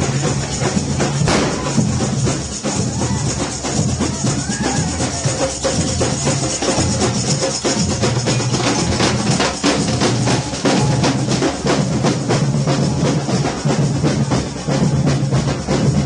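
Marching street drum band playing: large strapped-on drums and smaller drums beating a steady, dense rhythm.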